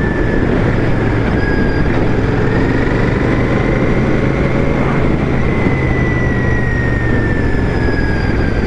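Royal Enfield Shotgun 650's 648 cc parallel-twin engine running steadily under way at an even road speed, with wind and road noise over it.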